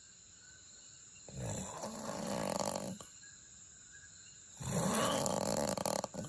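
A sleeping man snoring, two long snores about three seconds apart, each lasting around a second and a half.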